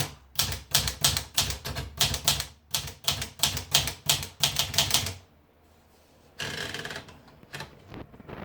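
PMC Elite 44 manual typewriter being typed on: a quick run of key strikes, about four a second, for some five seconds. After a brief pause comes a short rasp, then a few more clicks near the end.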